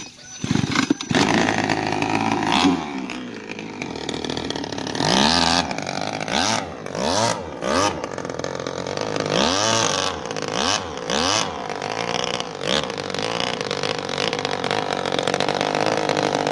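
23cc Japanese two-stroke grass-trimmer engine in a homemade RC boat, revved in repeated rising-and-falling bursts, then held at steady high revs over the last few seconds. The propeller churns the water while the boat is held in place.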